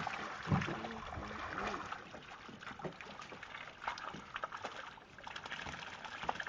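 Water sloshing and trickling against the side of a boat at a fish trap net, with scattered light knocks and clicks. Faint voices come through briefly near the start.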